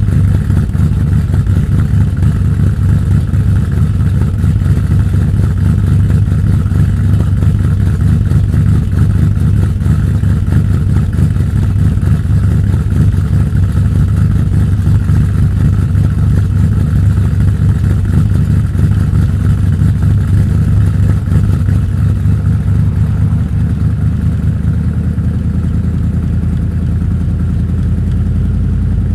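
Dodge 318 LA small-block V8 idling through its exhaust after a cold start, still warming up, heard from behind the tailpipes; it settles a little smoother and quieter in the last few seconds. The owner hears a click in this engine, which he hopes comes from a collapsed lifter or a header leak.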